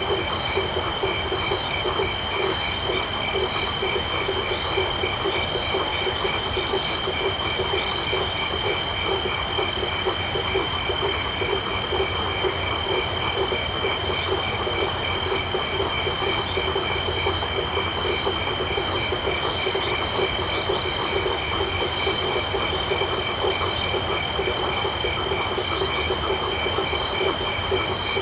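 Night chorus of frogs and crickets: a dense, rapidly pulsing low frog chorus under several steady high insect trills, with a few sharp high clicks scattered through.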